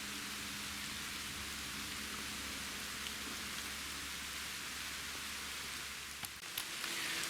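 Steady rain falling, a continuous even hiss of drops.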